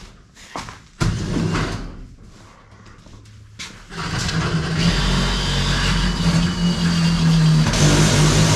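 An engine starting up about a second in, then running steadily and louder from about four seconds in.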